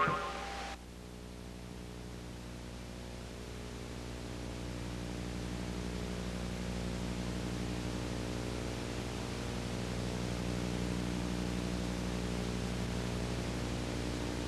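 Steady low hum with several fixed tones, under a background hiss, slowly growing a little louder. The tail of a pitched sound effect fades out within the first second.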